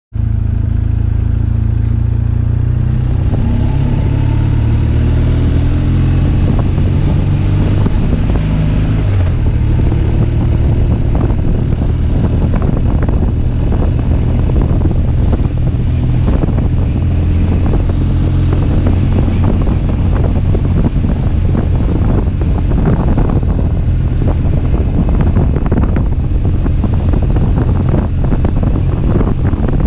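BMW R1200GS flat-twin boxer engine running under load while climbing, its note shifting sharply about nine seconds in. Wind buffets the helmet-mounted camera's microphone, growing gustier in the second half.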